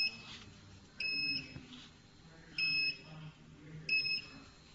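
Dental porcelain furnace's control panel beeping as its keys are pressed during program entry: short, high, steady beeps, three in a row spaced a second or more apart.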